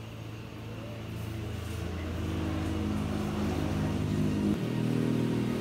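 A motor vehicle engine running steadily and slowly growing louder, with a short dip near the end.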